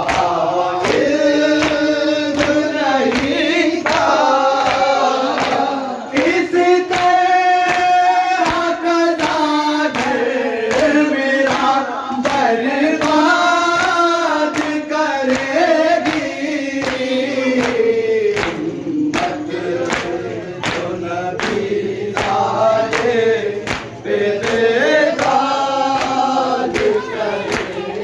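Group of men singing a noha, a Shia lament, in unison, with a steady beat of sharp strokes from hands striking chests (matam) keeping time.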